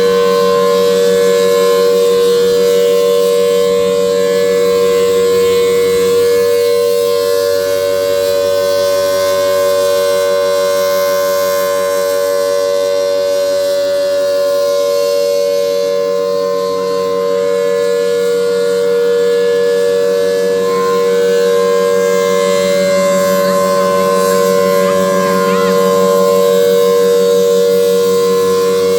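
Federal Signal Thunderbolt 1000T mechanical outdoor warning siren sounding a steady, loud wail at a constant pitch, two close tones sounding together. Its loudness slowly swells and fades as the siren turns.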